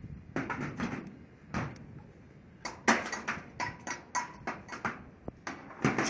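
A series of sharp clicks and knocks, about a dozen and irregularly spaced, the loudest about three seconds in. They come from shear-connector studs and ceramic ferrules being handled and knocked against the steel deck.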